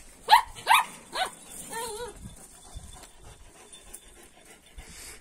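A dog barks three times in quick succession, followed by a short wavering whine.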